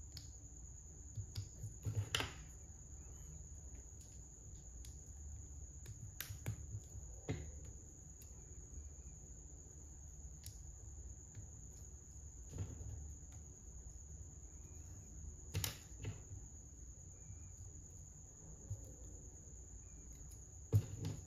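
Small plastic Lego bricks being handled and pressed together, giving sharp clicks and snaps every few seconds, the loudest near the end, over a steady high-pitched whine.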